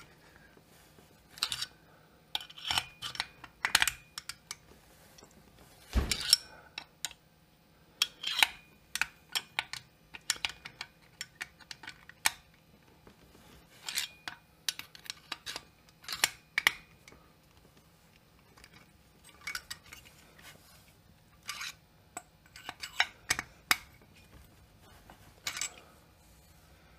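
Scattered metal clicks and clinks of a hand driver and screws as a chainsaw cylinder is tightened down onto its crankcase, with one heavier knock about six seconds in.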